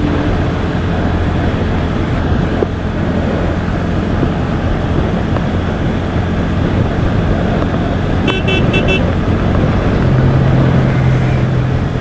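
Bajaj Pulsar N160's single-cylinder engine running steadily under way, recorded from a helmet-mounted camera with road and wind rush. About eight seconds in, a vehicle horn toots in a quick run of short beeps.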